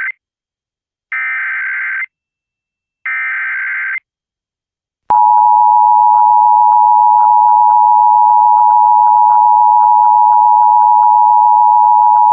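Emergency Alert System broadcast tones: the end of one SAME header data burst, then two more one-second bursts of warbling digital data tones. About five seconds in, the steady two-tone EAS attention signal starts and sounds on loudly.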